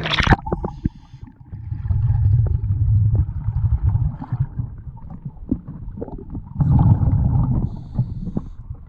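A splash as the camera goes under the surface, then the muffled underwater sound of a scuba regulator's exhaled bubbles: two long, low gushes of bubbles, one about two seconds in and another near the end.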